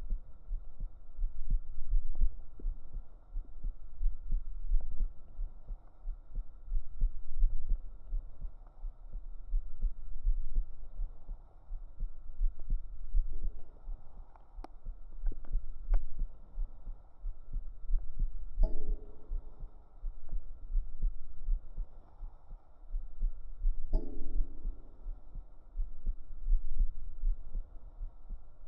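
A real human heartbeat recorded up close against the chest: a steady run of deep, muffled low thuds, the level swelling and fading every few seconds. Two brief higher sounds come in about two-thirds of the way through.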